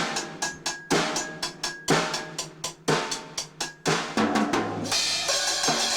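A child playing a drum kit: rapid, uneven snare and bass drum hits, then a ringing cymbal crash about five seconds in.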